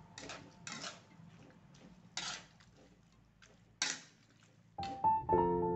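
Spatula scraping and stirring vegetables in an aluminium wok, a handful of short scrapes spread over the first four seconds. Background music comes in about five seconds in and is the loudest sound.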